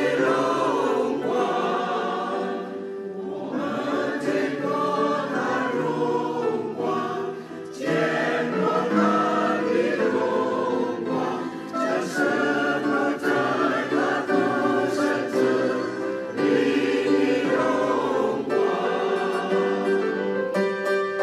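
Church choir singing in parts, holding sustained chords in phrases with brief breaths between them.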